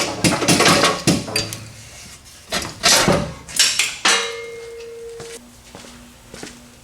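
Metal tools and parts clanking and rattling in a run of sharp knocks, then a short ringing note about four seconds in.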